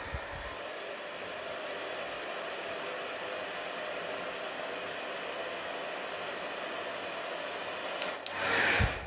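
Handheld hair dryer running steadily on its low-speed setting with heat, a continuous blowing hiss with a faint motor hum, briefly louder near the end.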